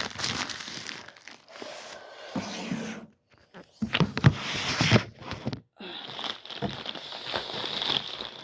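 Package packaging being torn and pulled open, rustling and crinkling with a few sharp knocks about halfway through; the sound cuts out briefly twice.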